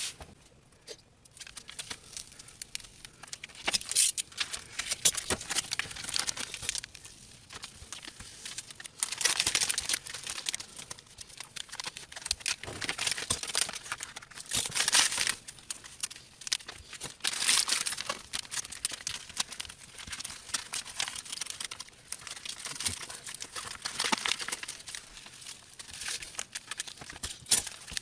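Adhesive vinyl and its backing paper crinkling and crackling as a cut sheet is handled and peeled, in irregular rustling bursts.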